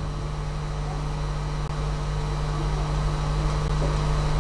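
Steady low hum over an even hiss, the room tone of a hall with a live sound system, growing slightly louder toward the end.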